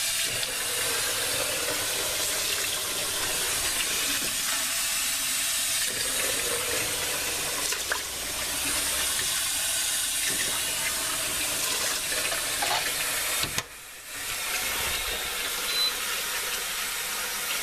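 Kitchen tap running steadily into a stainless steel sink, with a short break about three-quarters of the way in.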